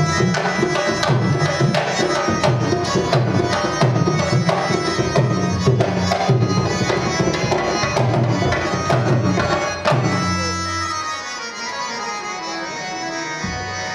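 Live Indian folk-ensemble music: hand drums beat a steady rhythm over harmonium. About ten seconds in, the drumming stops and the harmonium's held notes carry on alone, a little quieter.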